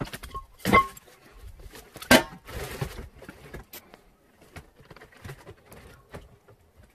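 Two sharp knocks about a second and a half apart, then a short rustle and scattered light clicks and taps.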